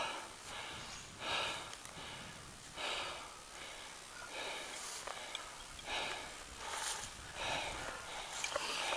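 A hiker breathing hard on a steep uphill climb, a loud breath every second or so.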